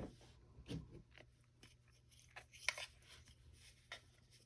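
Faint, scattered clicks and taps of small plastic controller parts being handled: the HoverAir beacon and joystick pieces turned over and tried against each other.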